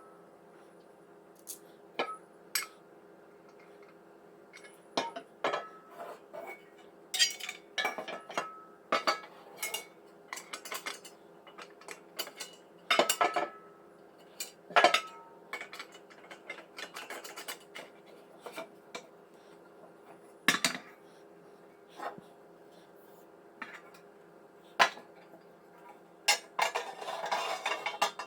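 Steel bracket parts clinking, knocking and rattling as they are handled, in separate sharp strikes with a longer run of rattling near the end.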